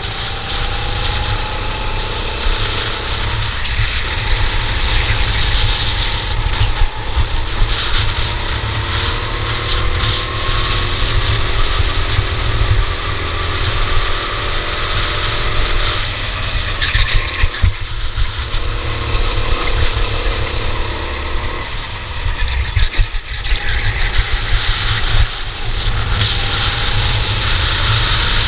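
Cadet racing kart engine running at race pace, its pitch rising and falling again and again as it revs up and drops back, over a heavy low rumble.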